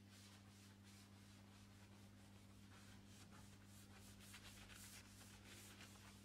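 Faint back-and-forth strokes of a Scotch-Brite abrasive pad rubbing down a painted wooden door, quickening and growing a little louder a few seconds in. A steady low electrical hum runs underneath.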